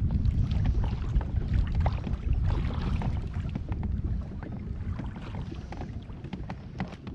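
Wind rumbling on the microphone over water lapping and slapping against a plastic fishing kayak's hull, with scattered light clicks and knocks; the rumble eases a little about halfway through.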